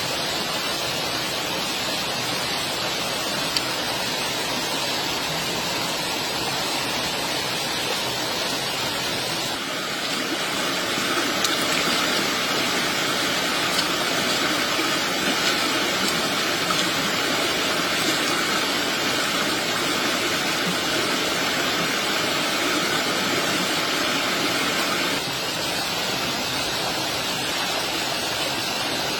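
Steady rushing noise like running water or heavy rain. It grows a little louder and brighter from about ten seconds in and drops back about twenty-five seconds in.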